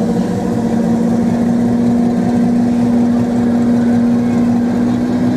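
A steady motor or engine hum at a constant pitch that creeps slightly higher, with a second tone joining near the end.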